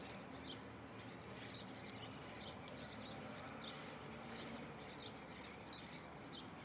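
Small birds chirping faintly: short, high chirps scattered irregularly, about one every second, over a steady low background noise.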